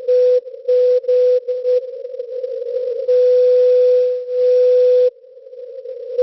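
Morse code from SVO Olympia Radio, the Greek maritime coastal station, received in CW on 8424 kHz on a shortwave receiver. A single beat tone of about 500 Hz is keyed in dots and dashes over receiver static, then held as one unbroken tone for about two seconds midway before dropping back to static.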